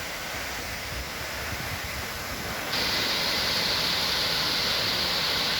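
Steady rush of falling water from a waterfall. About three seconds in, it cuts abruptly to a louder, hissier stretch.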